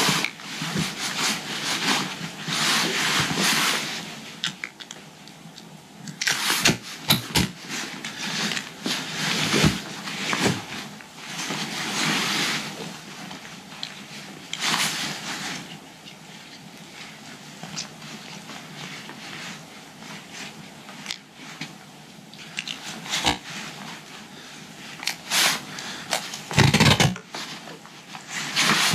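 Hands handling nylon webbing straps and duct tape while repairing a torn backpack hip belt: rustling and scraping, with several short, noisy rips as tape is pulled off the roll.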